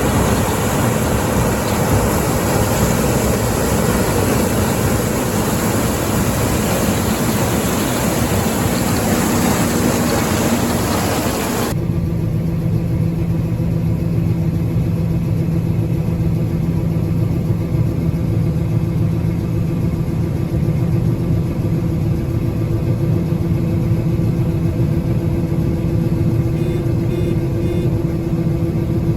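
Harvest machinery running: a loud, even machine noise that cuts off abruptly about twelve seconds in, giving way to a steady engine drone with a clear low hum.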